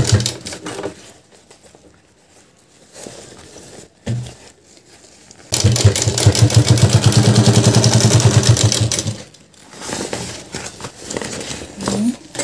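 Sewing machine stitching in two runs of rapid, even needle strokes: a short run that stops about a second in, then a longer run of about four seconds starting roughly halfway through. Softer handling noises fall in the pauses between.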